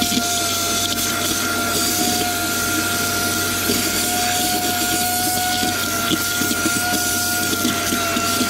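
A vacuum cleaner running steadily with a high whine that shifts slightly in pitch now and then, sucking up rust debris from a drip tray.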